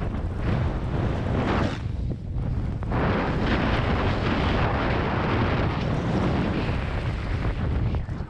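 Wind buffeting the microphone on a fast downhill run through fresh powder, a constant low rumble with swells of snow hiss as the rider turns, rising about half a second in and again from about three seconds on.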